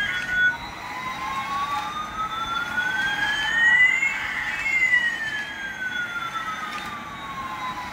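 Electronic sound effect from a battery-powered toy airliner: one tone slowly rising while another slowly falls over about seven seconds, crossing about four seconds in, a siren-like jet whine.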